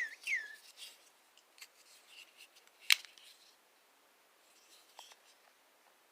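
Buck 345 Vantage folding pocket knife being handled. There are two short falling metallic squeaks at the start, light clicks of the blade and handle, and one sharp click about three seconds in, the loudest sound, as the blade snaps into or out of place.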